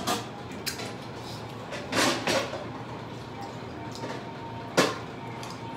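A few sharp clicks and knocks in a small room, with a brief scraping rustle about two seconds in and a single sharp knock near the end.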